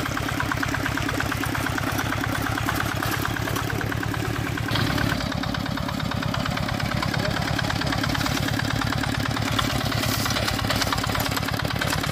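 Single-cylinder Dongfeng diesel engine of a two-wheel hand tractor running steadily with an even chugging pulse. The tone changes slightly a little under halfway through.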